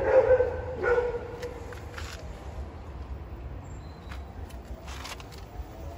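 Two short, pitched animal calls in the first second, then a steady low rumble of street traffic with a few faint clicks.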